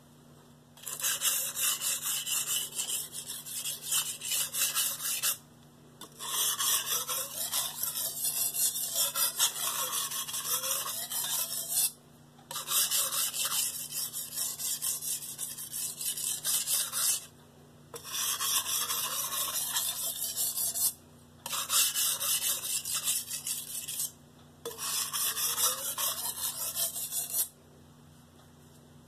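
Mercer nakiri's X30Cr13 stainless blade scrubbed back and forth on a wet 320-grit Shapton Pro whetstone in quick strokes. The strokes come in six runs of a few seconds each, with short pauses between. These are light scrubbing passes to grind away the burr left by the coarse stone.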